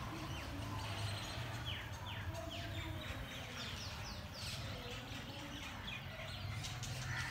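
Birds chirping outdoors, with runs of short, quick, falling chirps, over a steady low background hum.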